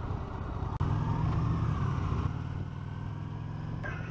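Honda Shadow Aero 750's V-twin engine running under way, mixed with wind rumble on the mount camera's microphone. The sound breaks off abruptly about a second in and changes again near the end, where the footage is cut.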